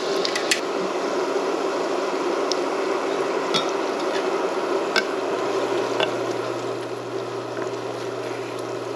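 Yeast donuts deep-frying in hot oil: a steady sizzle and bubbling with scattered pops and crackles. A low steady hum joins about halfway through.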